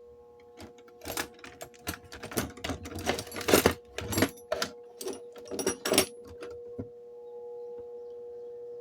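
Irregular clicking, clattering and knocking of hands working at a Kawamoto well pump's motor, over a steady hum. The clatter stops about two seconds before the end, leaving only the hum.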